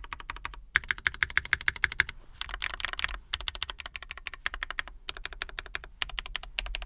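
Typing on a freshly built Intro S100 mechanical keyboard as a sound test: rapid keystroke clicks in several quick runs with short pauses between, not super high-pitched.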